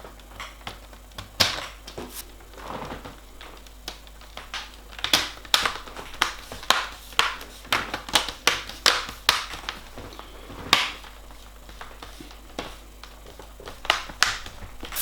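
Plastic screen bezel of an HP Pavilion G6 laptop being pressed back on, its clips snapping into place: a series of sharp clicks, about two a second in the middle of the stretch, with a few more spread out before and after.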